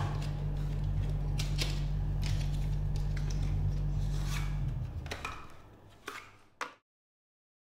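Washroom room tone: a steady low hum with scattered faint clicks and taps, fading out after about five seconds, a couple of small clicks, then silence.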